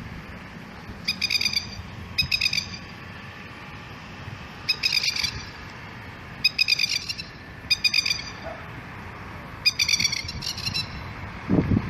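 Masked lapwing giving its rapid staccato 'kekekek' alarm call, raised in defence of a chick: about seven short, high chattering bursts, each about half a second long, spaced a second or two apart.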